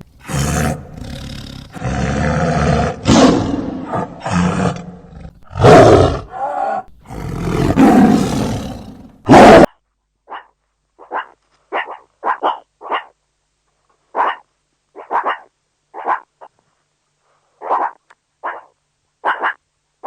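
A large animal roaring and growling in long, loud calls that cut off suddenly about ten seconds in. A string of short, separate barks follows, with silence between them.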